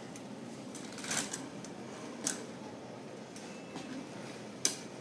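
A few light knocks and clicks from a person moving about close to the microphone: three short ones spread over the few seconds, the last the sharpest, over a low steady room background.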